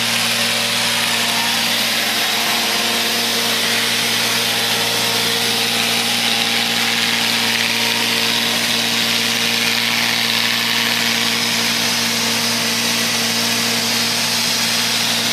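Neato XV-21 robot vacuum cleaner running: a steady motor hum with an even hiss of suction.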